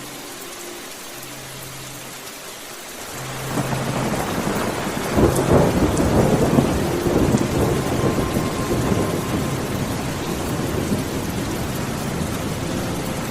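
Steady rain, then a long roll of thunder that swells about three and a half seconds in, is loudest a couple of seconds later, and fades slowly under the rain.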